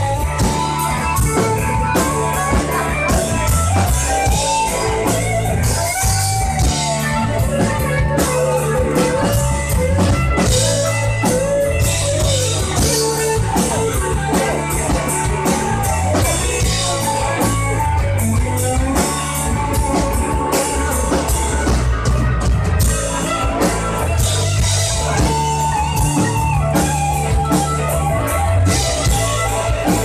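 Live rock band playing an instrumental passage: electric guitars over a drum kit, with a lead guitar line bending through the middle.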